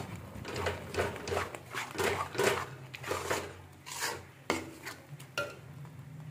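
Metal spatula scraping and stirring thick masala gravy around a metal kadai, in a series of rasping strokes about two a second, as the paste fries on a low flame.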